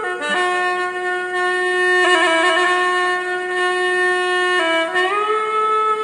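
Background music: a solo wind instrument playing slow, long held notes, dropping to a lower note just after the start and sliding up to a higher one about five seconds in.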